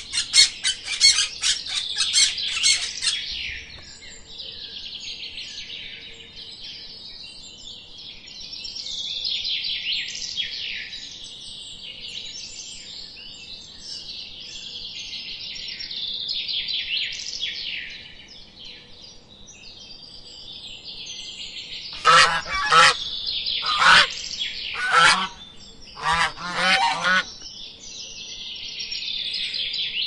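Small birds twittering and chirping high and continuously, opening with a rapid run of sharp chirps. About 22 seconds in, four loud, harsh honking calls come one after another.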